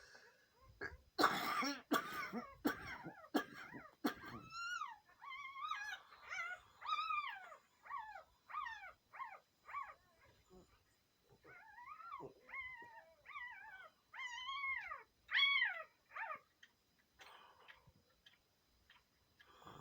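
A sleeping woman's vocal sounds: a few loud breathy, cough-like bursts in the first few seconds, then a long run of short, high-pitched whimpering squeaks, each rising and falling in pitch, coming in quick strings with short pauses between.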